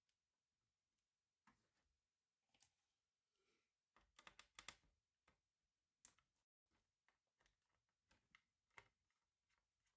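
Faint scattered clicks and taps, with a quick run of them about four to five seconds in: small parts of a laptop being handled during disassembly.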